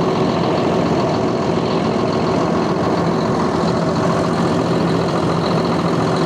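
Claas 850 tractor's diesel engine idling steadily.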